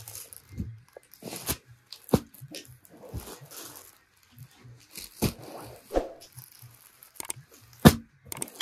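Clear plastic garment bags crinkling and rustling as packaged suits are handled and unfolded, with irregular sharp crackles and a loud snap of plastic near the end.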